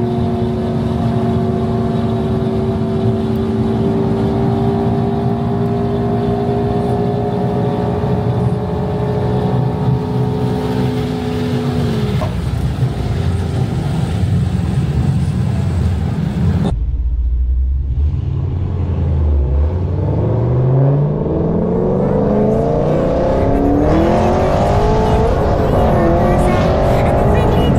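Fifth-generation Chevrolet Camaro SS 6.2-litre V8 cruising with a steady exhaust drone heard from inside the cabin, falling in pitch as it eases off about twelve seconds in. After a sudden change, the engine pulls hard, its pitch rising again and again as it runs up through the gears.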